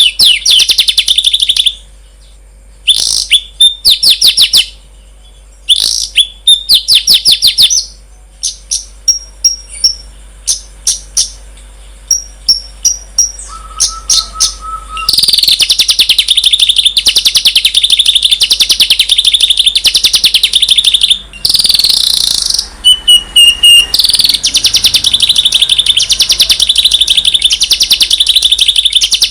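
Recorded songbird calls used as masteran training audio for caged birds: short bursts of rapid, high chattering trills with scattered chips in the first half, then a continuous fast, buzzy trill from about halfway on.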